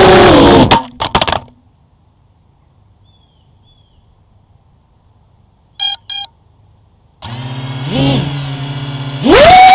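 FPV quadcopter's motors and propellers whining loudly and falling in pitch, then a clatter of hits about a second in as the drone crash-lands. After several seconds of near silence come two short beeps. The motors then start a steady idle hum and near the end throttle up sharply into a loud rising whine as the drone takes off again.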